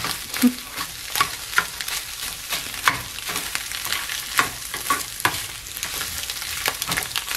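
A slotted spatula scraping and tapping against a small nonstick frying pan as scrambled eggs are chopped and turned, with sharp irregular clicks over a steady sizzle.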